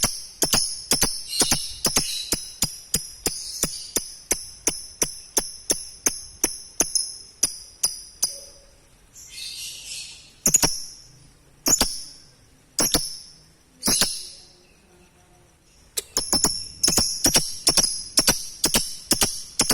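Lovebird giving sharp, high chirps in a fast even series of about three a second. About eight seconds in the series breaks into a short rasp and a few single chirps with pauses, and near the end the fast chirping starts again.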